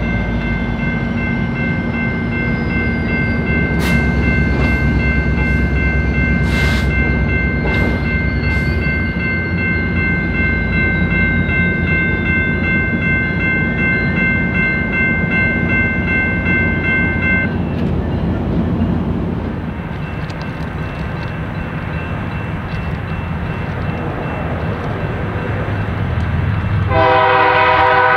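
A train running by with a low diesel rumble, a few sharp clicks and a steady high whine for about the first two-thirds. Near the end a locomotive air horn starts blowing loudly.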